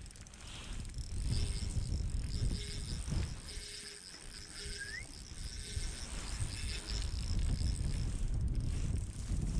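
Wind rumbling on the microphone, with a faint steady high-pitched buzz over it and a brief rising squeak about halfway through.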